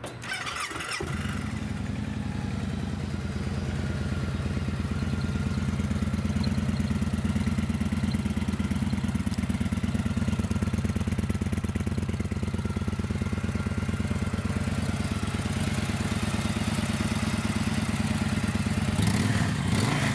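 A 2014 Victory High-Ball's 106-cubic-inch fuel-injected V-twin is cranked by its starter, catches about a second in and settles into a steady idle. Near the end the throttle is blipped once.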